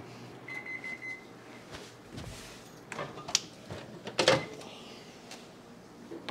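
Microwave oven beeping, a quick run of short high beeps, followed by several clicks and knocks of its door and the bowl being handled, the loudest knock about four seconds in.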